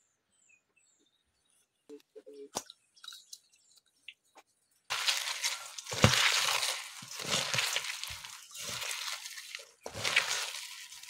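A hand squeezing and mixing chopped raw mango leaves with salt and oil in a stainless steel bowl, kneading the chutney: wet crunching and rustling in uneven surges that starts about five seconds in, after a few faint clicks.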